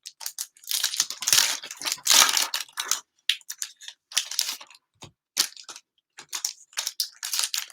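Plastic wrappers of trading-card cello packs being torn open and crinkled by hand: a dense run of crackling over the first two or three seconds, then scattered crackles and clicks.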